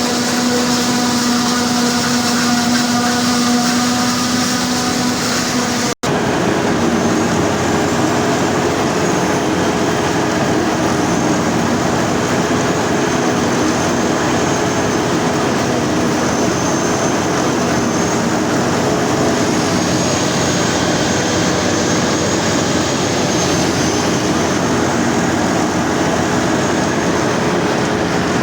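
Combine harvester running steadily: a continuous machine drone with steady tones and a faint high whine. About six seconds in the sound drops out for an instant and resumes with a different pitch.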